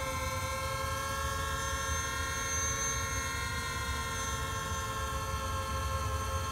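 Home-built multirotor drone's electric motors and propellers humming in a hover: a steady whine of several held pitches that barely shift, the sound of a stable hover held by the flight controller with the throttle left alone.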